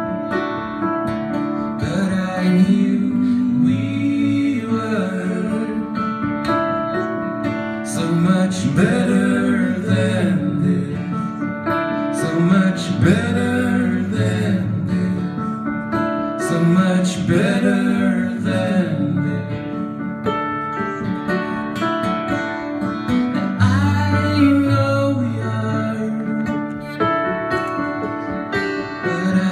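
Live acoustic pop song: steel-string acoustic guitar strummed and a Nord Stage keyboard playing piano, with a man singing over them at intervals.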